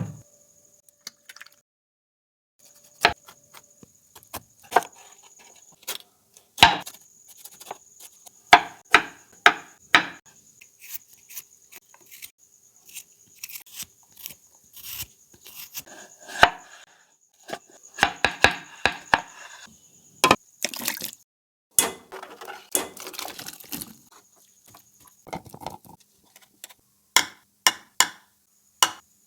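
Kitchen knife cutting on a wooden chopping board: irregular sharp knocks and clicks, sometimes several in quick succession, with short pauses between.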